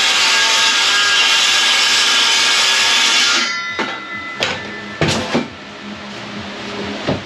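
Power saw cutting through timber along a marked line, then switched off about three and a half seconds in, the blade briefly spinning down. A few separate knocks follow as the wood is handled.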